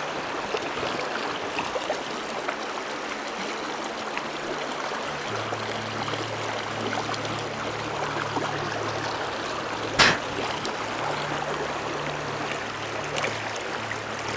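Mountain stream water running steadily over rocks and riffles, with a single sharp knock about ten seconds in.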